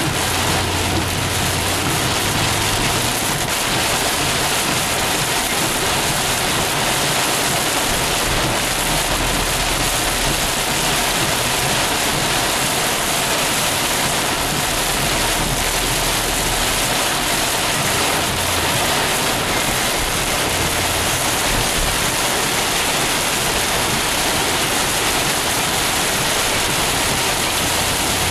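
Heavy rain falling on a moving car's roof and windshield, heard from inside the cabin as a steady, dense hiss.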